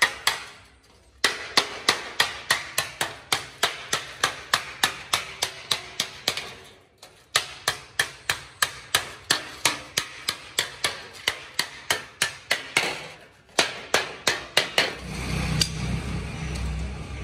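Wooden mallet striking a thin stainless steel sheet laid on a block, a steady run of sharp metallic blows about three or four a second, with a few short pauses. The blows stop near the end.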